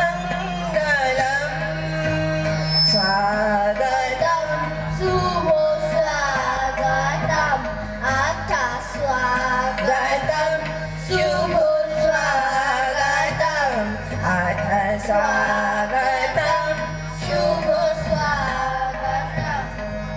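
A Bengali welcome song sung by a group of schoolchildren with a woman leading, accompanied by a harmonium's steady drone and rhythmic percussion strokes.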